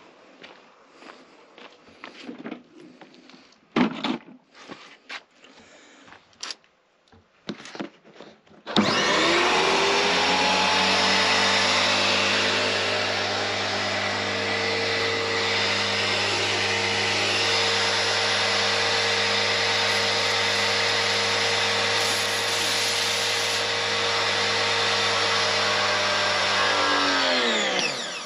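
A few knocks and clicks, then the Stanley SXPW22E electric pressure washer's motor and pump start about nine seconds in with a rising whine. It runs steadily and loudly for most of the rest, then winds down with a falling pitch near the end.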